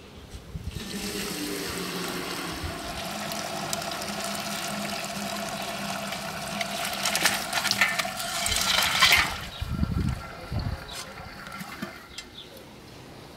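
Chicken broth poured from a large metal pot into a metal colander: a steady splashing pour. About seven to nine seconds in, the boiled bones and vegetables slide out and slap into the colander with sharp knocks.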